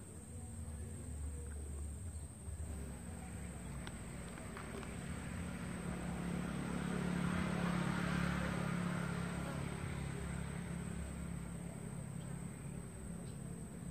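An engine passing by: a low hum that grows louder to a peak around the middle and then fades.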